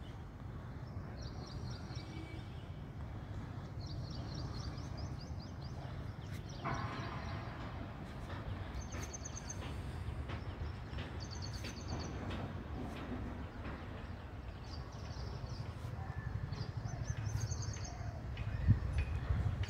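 Birds chirping in short bursts of rapid high notes every few seconds, over a steady low rumble. A single thump comes near the end.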